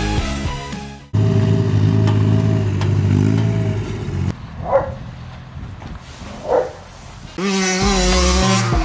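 The engine of a Thwaites site dumper running steadily, followed by a quieter stretch with two short sharp calls. Near the end a two-stroke Gas Gas MC65 motocross bike engine comes in loud and revs up and down.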